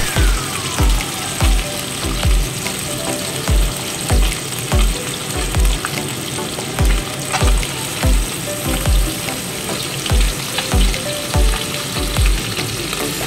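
Small tangra catfish frying in hot oil in an iron kadai: a steady crackling sizzle. Under it is a low, regular thumping beat, about one thump every three-quarters of a second.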